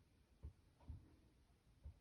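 Near silence with three faint, soft knocks spread over two seconds, as of small objects being handled.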